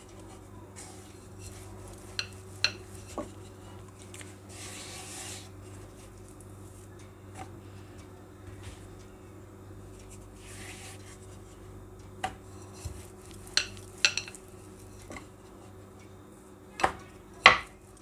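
Hands and a wooden rolling pin working paratha dough on a wooden board: soft rubbing and a light hiss of flour being sprinkled, broken by scattered light taps and knocks of wood on the board, the loudest knock near the end. A steady low hum runs underneath.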